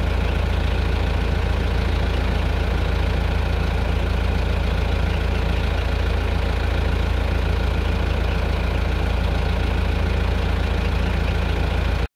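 Loud, steady engine drone with a constant hum and heavy low rumble, unchanging throughout, cutting off suddenly near the end.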